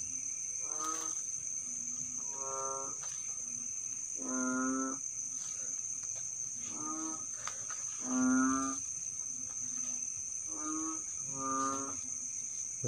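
A series of short, steady-pitched, voice-like calls, each under a second long, coming at uneven gaps of one to two seconds, heard as an unexplained voice. Under them runs a steady high drone of crickets.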